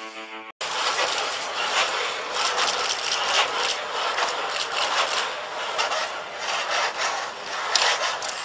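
Kawada HRP-4 humanoid robot walking: a dense mechanical whirring and clicking from its geared electric joint motors, with a sharper click near the end.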